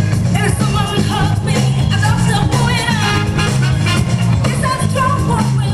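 Loud breakbeat music with a vocal line and a pulsing bass, played by the battle DJ over the sound system.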